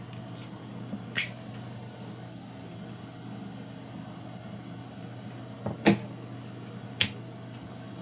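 Small clicks and taps from fly-tying tools handled at the vise: three short knocks, about a second in, about six seconds in and about seven seconds in, the middle one loudest, over a steady low hum.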